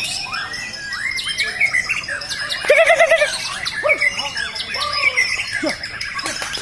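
Many caged songbirds calling at once, overlapping chirps, squawks and rapid warbling trills, the loudest trill about three seconds in.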